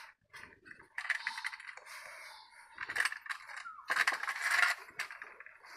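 Metal dishes and utensils clinking, rattling and scraping in short bouts, about a second in, around three seconds, and again around four seconds.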